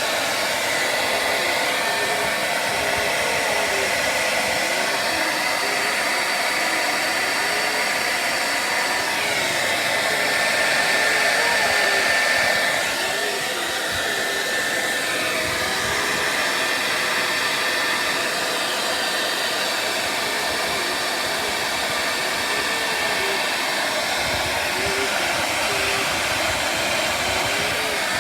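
Handheld hair dryer running on its hot setting: a steady rushing blow with a faint whine, louder for a few seconds about ten seconds in.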